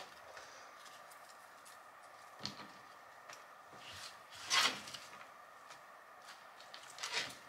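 Soft handling noises of sliced onion being spread by hand over vegetables in a foil-lined baking pan, with a brief scrape about halfway through as onion is swept off a plastic cutting board. A faint steady hum underneath.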